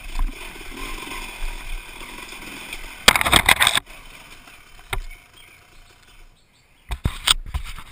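Dirt bike engine running at low speed, heard from the rider's helmet, with a loud noisy burst about three seconds in and short sharp knocks near the middle and the end.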